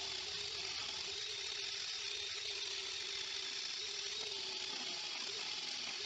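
Electric angle grinder running steadily with an abrasive disc pressed against flat steel bar, grinding the metal clean in preparation for welding: a constant motor whine under an even hiss of abrasion.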